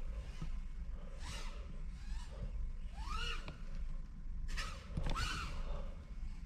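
FPV quadcopter's brushless motors (MADUK Bando Smurfer 2406 1900kv) and propellers whining, the pitch rising and falling back with each throttle punch, several times about a second or two apart, over a steady low rumble.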